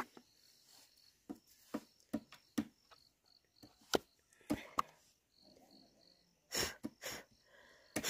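Light clicks and knocks of a chainsaw's plastic housing and air filter being handled as the filter's wire clip is unhooked and the filter lifted off. A few short breathy puffs come near the end.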